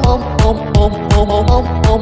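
Fast electronic dance music with a steady kick drum, about three beats a second, under a stepping synth melody; no vocals.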